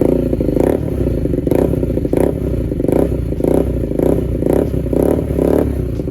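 Bajaj Pulsar NS200's single-cylinder engine through an SC Project full-system exhaust, just started and blipped about nine times in quick succession, falling back between blips. It settles to a loud, pulsing idle near the end.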